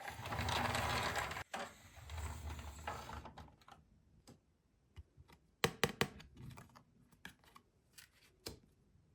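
Plastic toy pieces and packaging being handled: a crinkly rustle for about three seconds, then scattered light clicks and taps as the parts are fitted and set down.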